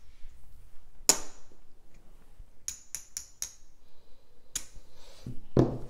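Casino chips clicking against each other as they are stacked and set down on the table: one sharp click about a second in, a quick run of four clicks near the middle, and one more a little later.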